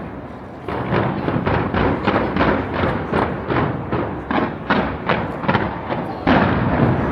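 Fireworks exploding in a rapid, even run of bangs, about three a second, with a louder bang about six seconds in.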